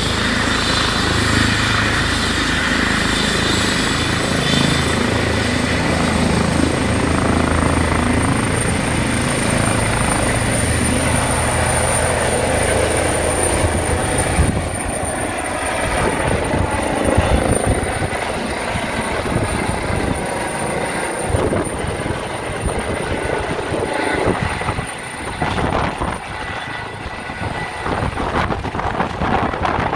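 Eurocopter EC135 T2+ helicopter's twin turbines and rotor running at lift-off power as it lifts off and climbs away overhead. A high turbine whine runs throughout and rises slightly in pitch about seven seconds in. From about halfway the low steady rotor tone gives way to a rougher, gusty sound as the helicopter climbs.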